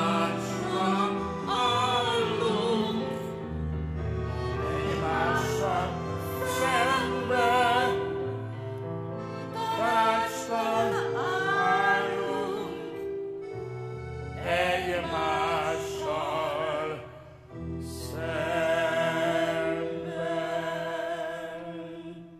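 A woman and a man singing a duet in operatic style, voices with wide vibrato, over instrumental backing. The song draws to a close near the end.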